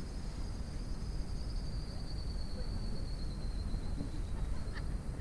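Wind buffeting the microphone, a rumbling low noise, with a faint thin high whine that sinks slowly in pitch.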